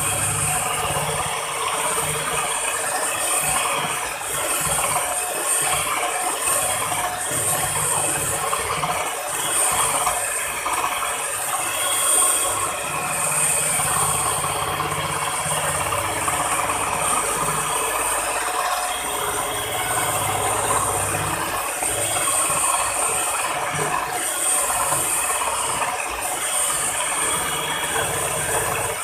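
Miyako electric hand mixer running steadily, its beaters whipping a frothy ice cream mixture in a plastic bowl until it turns light and fluffy.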